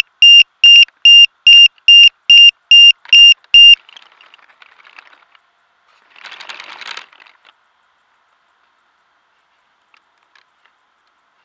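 Electronic beeper aboard a radio-controlled model plane sounding a loud, high, even beep about two and a half times a second, which stops about a third of the way in. About two seconds later comes a brief rustle.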